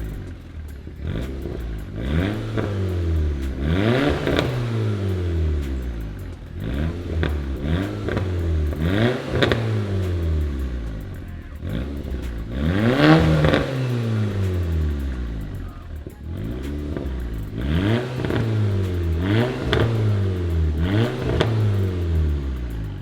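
VW Golf R (Mk6) 2.0-litre turbocharged four-cylinder through a Scorpion non-resonated valved catback exhaust, revved again and again, the pitch rising and dropping back every second or two, with the biggest rev about halfway through. Non-resonated with the factory valve retained, the exhaust opens up loud under throttle.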